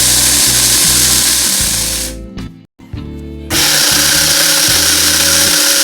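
Electric mixer grinder running at full speed, grinding soaked rice and dal with a little water into a coarse dosa batter. Its sound fades and drops out briefly around two and a half seconds in, then comes back at full speed.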